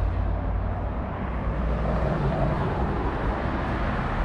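Steady road traffic noise from cars passing on the adjacent road: an even low rumble with hiss, no distinct events.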